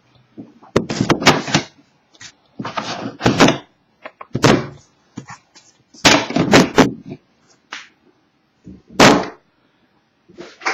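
A sealed box of hockey cards being opened and handled: a run of short, uneven rustles, rips and knocks of cardboard and plastic wrapping, with brief pauses between them.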